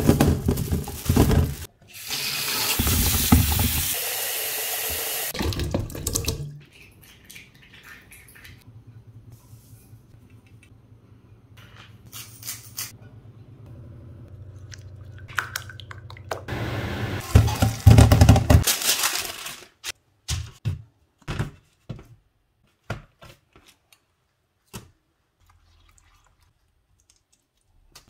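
Water rushing steadily into a steel kitchen sink for about four seconds as boiled potatoes are drained in a plastic colander. Then quieter kitchen handling, a burst of loud knocks about two-thirds of the way through, and scattered clicks and taps near the end.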